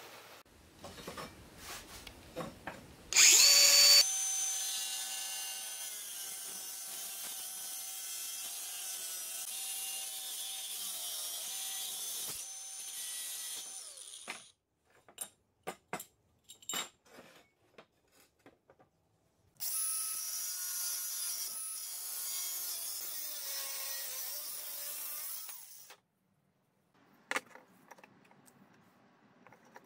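Angle grinder cutting steel: a very loud burst about three seconds in, then the motor whine and cutting hiss hold for about ten seconds, the pitch wavering under load. After scattered clicks and taps, a second cut of about six seconds ends abruptly.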